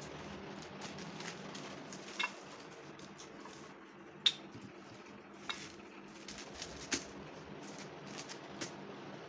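A few light clinks and taps of spoons and ceramic plates while soft dough is handled, over a faint steady room hum; the sharpest clink comes about four seconds in.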